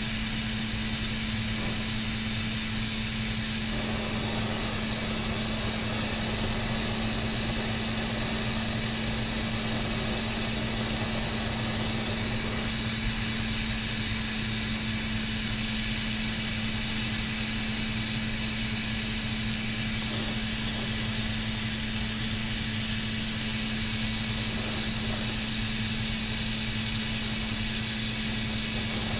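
Glassblowing bench torch burning with a steady hiss, over a constant low hum of shop equipment.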